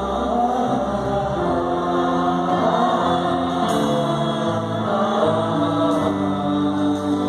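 Mixed choir of men's and women's voices singing a Christian worship song in long held notes, with live band accompaniment.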